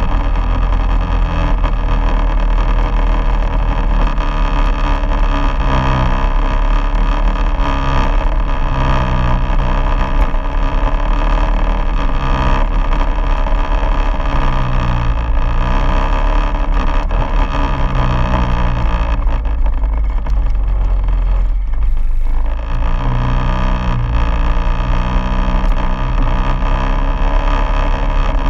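Quad bike engine running under way over a gravel track, its note rising and falling with the throttle. The sound eases for a couple of seconds about two-thirds of the way through.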